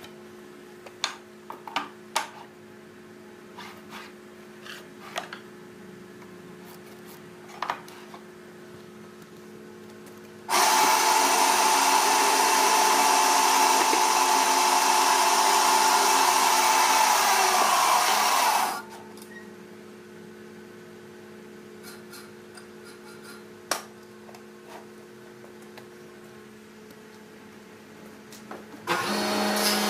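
Band saw cutting through a wooden board: a loud, steady rasp with a whine that starts suddenly about ten seconds in and lasts about eight seconds, its pitch sagging just before it stops. Before and after it there is a steady low machine hum with a few sharp knocks, and near the end a louder machine starts up.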